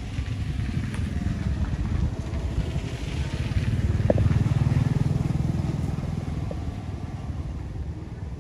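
A passing motor vehicle's engine: a low pulsing rumble that grows to its loudest about halfway through, then fades away.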